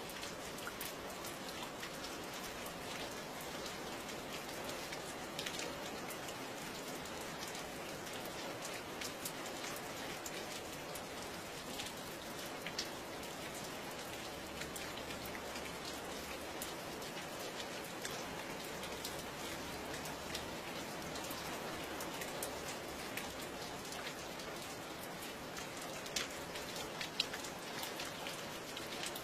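Steady rainfall with individual raindrops ticking sharply on a surface, a few louder drops standing out near the end.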